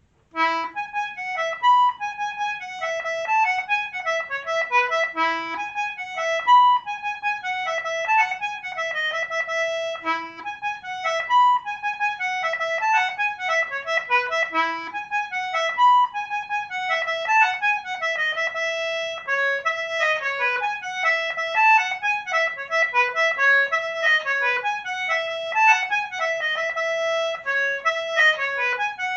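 Solo concertina playing a fast, busy tune in E major: quick runs of notes with a lower note sounding every five seconds or so during the first half.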